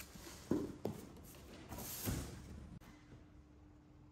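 Knocks and rustling of things being handled: two sharp knocks about half a second in, a rustling swell with another knock around two seconds, then a faint steady hum from about three seconds in.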